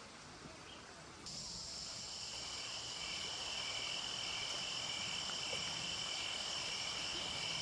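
A steady chorus of insects, several high shrill tones held without a break, starting suddenly about a second in over faint outdoor background.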